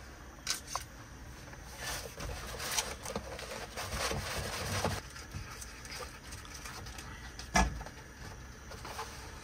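Crinkling and rustling of a butter block's paper wrapper being opened with a knife, with small clicks and taps of handling at the counter. A single sharp knock comes about seven and a half seconds in, as something is set down by the pan.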